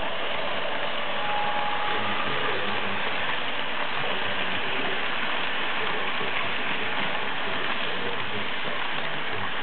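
Model train locomotives running steadily on the track, their small electric motors and gears whirring along with a steady rolling rattle of wheels on rails.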